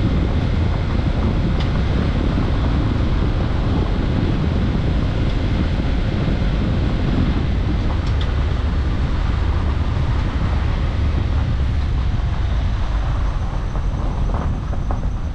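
Car driving along a road: a steady low rumble of engine and tyres with wind noise on the microphone, easing slightly near the end.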